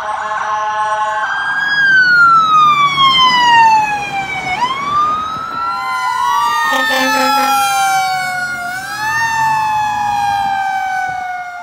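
Emergency vehicle sirens wailing in long falling and rising sweeps, with several siren tones overlapping in the middle.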